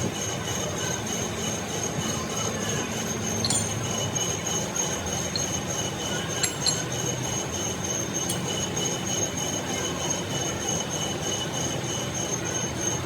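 Workshop machinery running with a steady high-pitched metallic squeal over a continuous noisy rumble, and a few sharp clicks in the middle.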